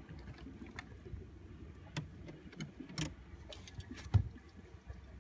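Scattered light clicks and knocks over a low rumble, with one heavy low thump about four seconds in.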